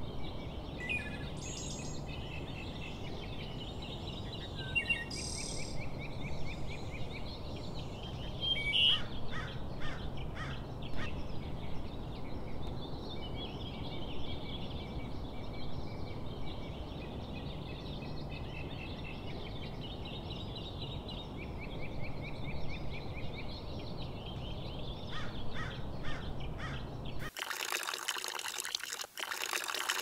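Birds calling and chirping at daybreak over a steady low background noise of the lakeside. About three seconds before the end this gives way abruptly to a brighter, steady hiss.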